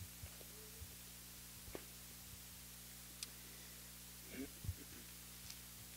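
Near silence: a steady low electrical hum from the microphone and sound system, with a few faint soft knocks and clicks of handling at the lectern.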